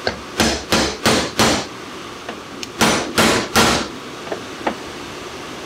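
Hammer blows on a steel seal-driver tool, driving the rear grease seal into a 1974 MGB GT front brake hub to seat it flush: four blows in quick succession, a short pause, then three more, each ringing briefly.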